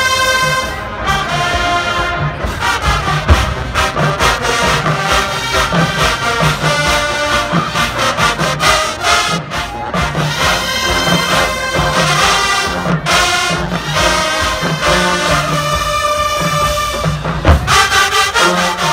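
HBCU show-style marching band playing loud brass music, with trombones and trumpets over drums and a repeating low bass line.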